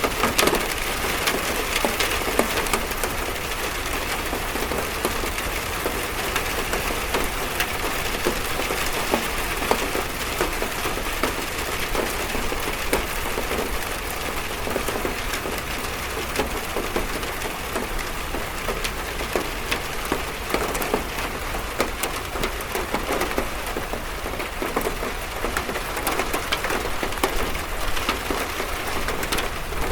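Steady rain drumming on a metal roof, a dense patter of countless drop impacts that holds even throughout.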